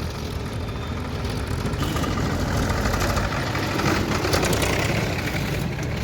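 Heavy diesel engine of earthmoving machinery running steadily, growing a little louder in the middle and easing off near the end.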